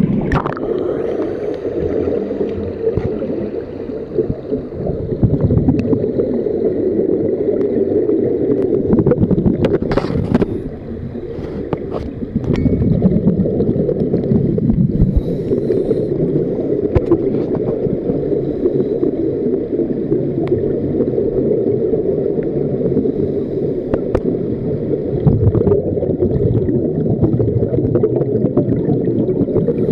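Muffled underwater noise picked up by a camera held under the water of a diving pool: a steady low rush with gurgling from scuba divers' exhaled bubbles and scattered short clicks and knocks.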